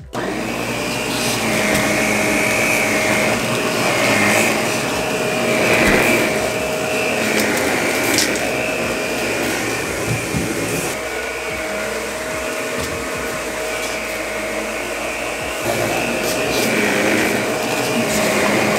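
Shark Rotator Professional upright vacuum cleaner running on carpet: a steady motor rush with a constant whine, growing a little louder and softer at times.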